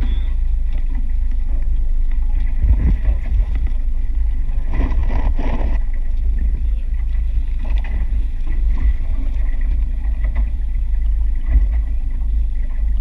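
Steady low rumble of wind on the microphone and a fishing boat running on open ocean, with a louder burst of noise about five seconds in.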